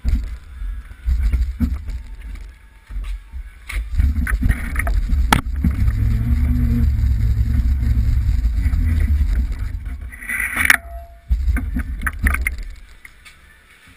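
Kart being handled and rolled across a concrete floor, with irregular low rumbling and knocks coming through the chassis-mounted camera. The rumble is loudest in the middle stretch, and a short squeal comes about ten seconds in.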